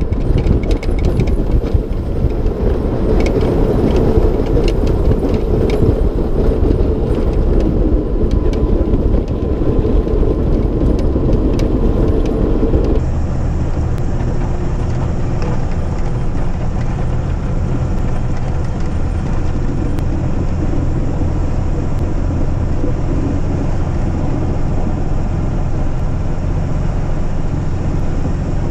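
A Mack Granite snowplow truck plowing at speed. For the first part, snow and wind rush loudly past a microphone mounted outside beside the plow, with scattered ticks. About halfway through the sound switches abruptly to the steadier drone of the truck's diesel engine and the plow, heard from inside the cab.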